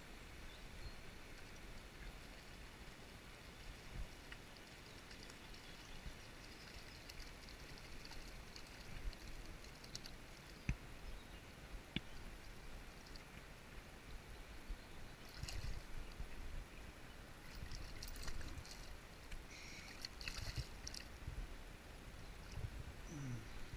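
Shallow stream running over rocks, a steady gurgling hiss. From about the middle on come a few short splashes and knocks as a hooked brown trout is handled in the water.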